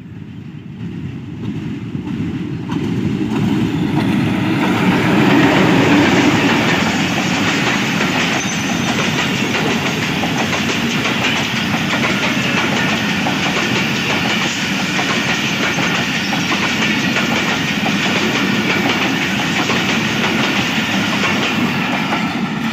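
Diesel-hauled train passing close by. The sound swells to its loudest about five seconds in as the locomotive goes past, then a long string of cars rolls by with steady wheel clatter over the rail joints.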